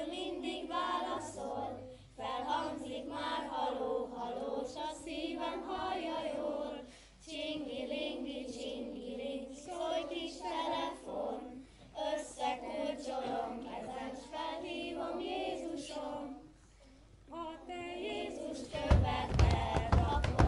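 A children's choir singing an action song in phrases with short breaks, a woman's voice among them through a microphone. Near the end a run of heavy thumps joins the singing.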